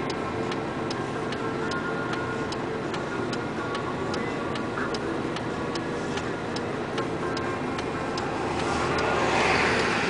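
A vehicle's turn-signal or hazard flasher ticking steadily, about two ticks a second, over the low rumble of an idling engine heard from inside the cab. Near the end a rushing noise of passing traffic swells and fades.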